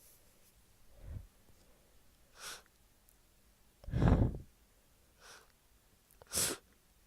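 A person with a bad cold breathing through a stuffy, congested nose. There are several short hissing sniffs and a couple of heavy, breathy exhales, the loudest about four seconds in.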